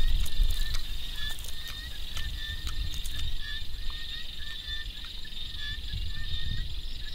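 Sharp crunching clicks as a deep-fried giant water bug is pulled apart and chewed, several in the first three seconds. Underneath run a steady high insect chorus and a short chirping call repeated every half second or so, with wind rumble on the microphone, strongest at the start.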